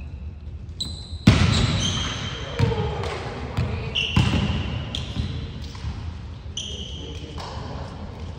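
A volleyball being struck during a rally in a gym: three sharp smacks that echo around the hall, the first about a second in and the loudest, with sneakers squeaking on the hardwood floor between the hits.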